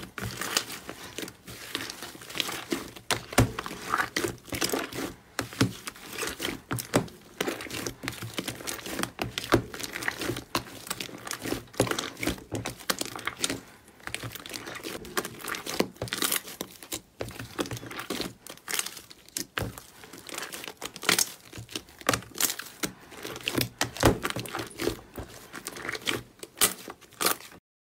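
Thick slime being squeezed, pressed and pulled by hand in a plastic tub: a dense, irregular stream of small pops, clicks and squelches. It stops abruptly near the end.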